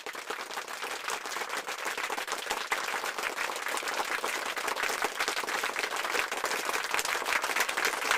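A crowd applauding: dense, continuous clapping that grows slightly louder toward the end.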